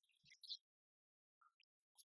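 Near silence, with a few faint small clicks and ticks in the first half second and again about a second and a half in.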